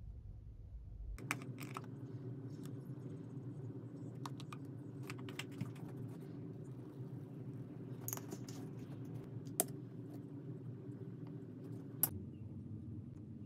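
Scattered light clinks and taps of dishes and a spoon on a wooden tray, over a faint steady low hum that starts about a second in.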